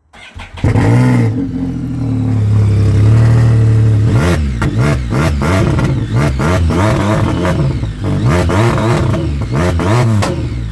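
Can-Am motorcycle engine idling steadily, then revved in a series of quick throttle blips, about one a second, from about four seconds in.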